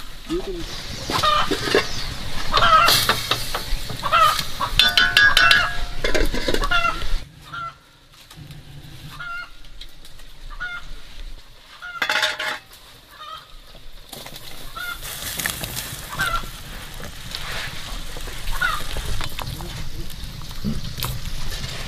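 Chickens clucking: a busy run of calls in the first seven seconds, then scattered single calls about a second apart. There is a sharp knock about twelve seconds in.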